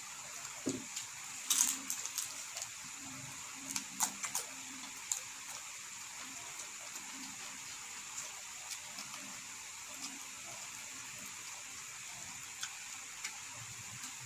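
Eating sounds from hand-eating: chewing and fingers picking at rice and crisp food on a plastic-covered table. Scattered clicks and crackles come mostly in the first five seconds and grow sparse after, over a steady hiss.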